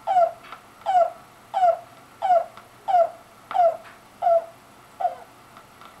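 Bird call played back through a speaker: a series of eight short nasal notes, each slurring downward, evenly spaced about one and a half a second, ending about five seconds in.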